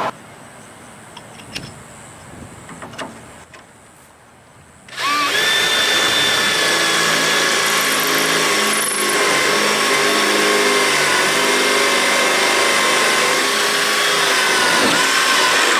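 Power drill boring a hole through a wooden boat transom board. A few faint clicks and taps come first. About five seconds in the drill starts, winds up to speed and runs steadily for about ten seconds, then stops abruptly.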